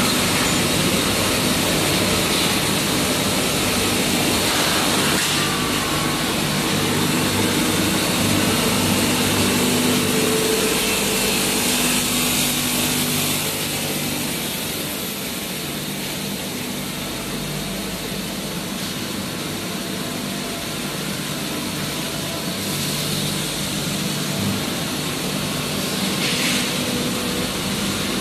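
Machinery of a stainless steel welded-pipe mill running steadily, a low hum under a broad hiss.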